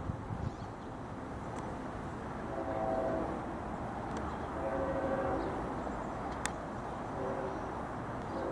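Locomotive air horn sounding a chord in separate blasts: long, long, short, then another starting at the end. This is the pattern of a grade-crossing warning. The horn is heard over a steady rumble.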